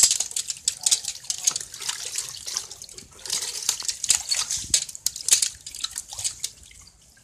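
Water splashing and dripping as a hand net lifts catfish fingerlings out of a bucket and tips them onto a plastic-barred sorting crate, with many short wet patters and slaps of wriggling fish. The splashing is loudest right at the start and again in the middle, and dies away near the end.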